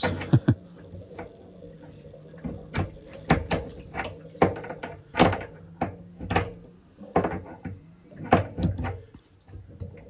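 Metal spanner clicking and knocking against a radiator valve's nut as it is worked round, in irregular sharp clicks about one or two a second.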